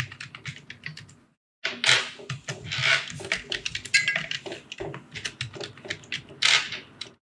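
Computer keyboard being typed on: quick, uneven runs of key clicks, with a short pause about a second in and the typing stopping just before the end.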